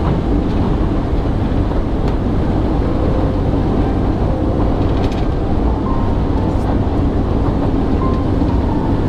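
Steady road noise inside a moving car: an even low rumble of tyres and engine.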